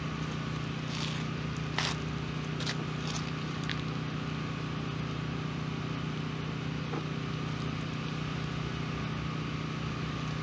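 A few short rubbing swishes in the first four seconds, a cloth drying off a polished plastic headlight lens, over a steady mechanical hum that runs throughout.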